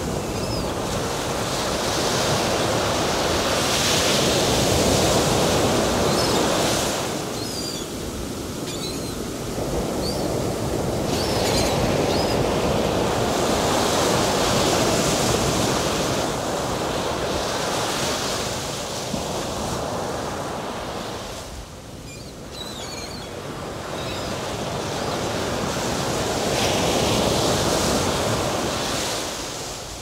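Ocean waves, a rushing wash of water that swells and falls back in slow surges roughly every ten seconds.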